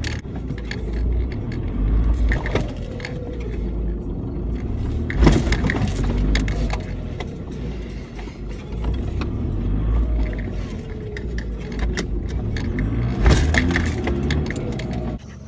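Off-road vehicle driving over rough, muddy ground, heard from inside the cabin: a steady low engine and drivetrain rumble with frequent knocks and rattles as the body jolts over the bumps.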